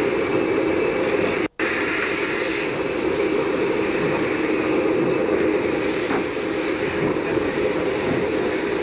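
Class 15F steam locomotive heard from the cab while moving: a steady rush and hiss of steam with no distinct exhaust beats. The sound drops out for a split second about a second and a half in.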